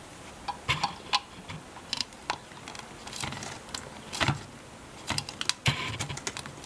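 Irregular light clicks and taps as a black ABS plastic closet flange is handled and turned over in the hand, knocking now and then against the bench.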